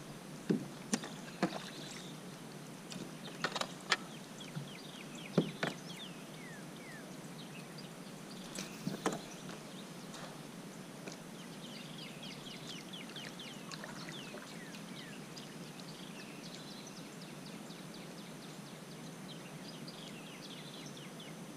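Scattered knocks and clicks from gear moving in a kayak, with one short watery swish about nine seconds in, over a steady outdoor background with small birds chirping.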